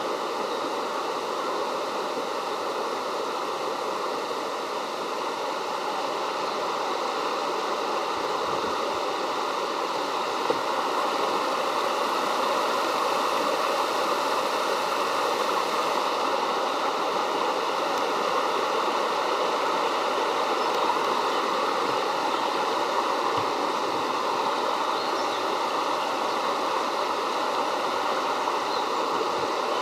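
Rapidan River mountain stream rushing steadily over rocks.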